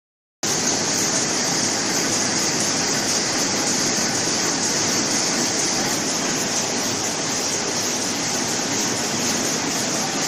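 Steady machinery noise of a running flow-pack packaging line and its conveyor, with a strong even hiss on top. It starts abruptly about half a second in.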